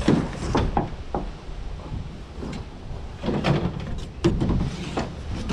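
Hard plastic items knocking and clattering as salvaged junk, including a vacuum cleaner with its corrugated hose, is shifted around in a pickup truck bed. A cluster of knocks comes at the start and another about three seconds in.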